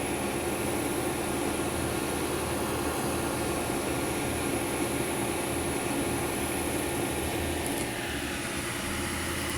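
Cooling fans of a running desktop gaming PC with its case open: a steady whir with a low hum. It eases slightly about eight seconds in.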